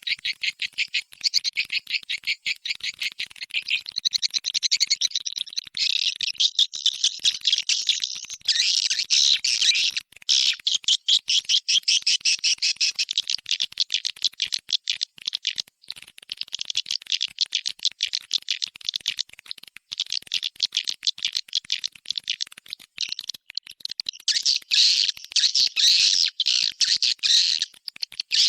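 Edible-nest swiftlet calls: a dense, continuous chatter of rapid twittering pulses. This is a recorded lure call played to draw swiftlets to roost in a nesting house.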